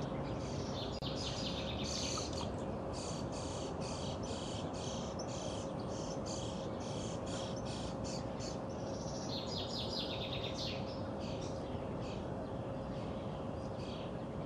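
Small birds chirping and trilling in quick repeated runs, heaviest in two bouts, over a steady outdoor hiss and a faint steady hum.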